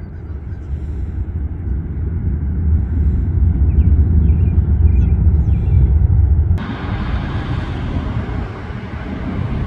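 Low outdoor rumble growing louder over about six seconds, then cutting off abruptly to a quieter, brighter hiss.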